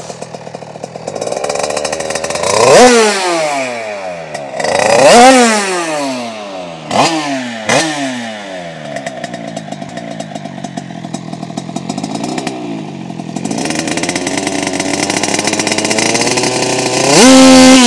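A 50cc AM6 two-stroke supermotard engine, fitted with an 88cc Stage6 kit and a twin-outlet exhaust, revved hard while standing still. Several sharp blips rise and fall back, then a long climb ends in loud, high revs held near the end.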